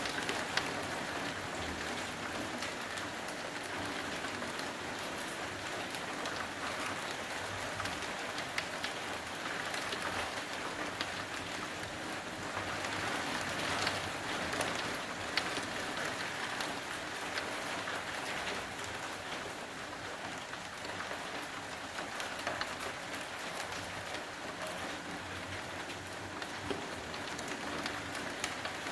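Heavy rain falling steadily: a dense, even hiss with scattered sharper ticks of drops striking nearby surfaces.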